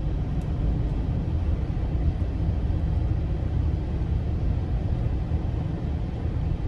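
Steady low hum of road and engine noise inside the cabin of a 2022 Audi RS Q8 with its 4.0-litre twin-turbo V8, cruising downhill. The heavily sound-deadened cabin keeps it very, very quiet, with no revving or gear changes.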